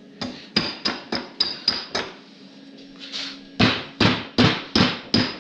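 Rubber mallet striking a two-stroke snowmobile engine's cylinder upward to knock it loose from the crankcase, where it is stuck fast. About seven quick taps, a short pause, then five harder blows.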